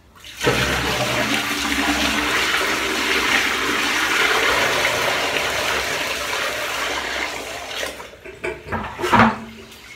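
A full plastic bucket of water dumped in one go onto a tiled bathroom floor drain, rushing and splashing down the drain for about seven seconds before it tails off. The drain has just been plunged clear of a clog and takes the water freely. A few knocks follow near the end.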